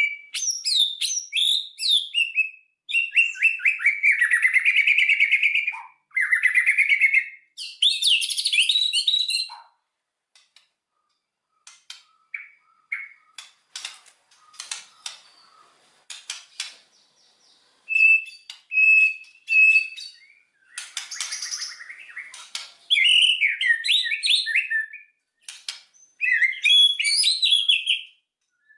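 White-rumped shama (murai batu) singing in loud, rapid bursts of varied whistles and trills. Midway the song thins to scattered sharp clicking notes, then three short clear whistles, before dense phrases resume.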